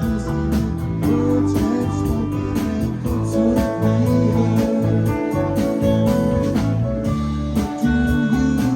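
Live rock band playing an instrumental passage: guitar lines with bending notes over bass and drums.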